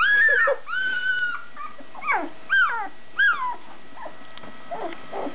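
Two-and-a-half-week-old puppy whimpering and squealing: two high held whines, then three short falling squeals about half a second apart, fading out after about three and a half seconds.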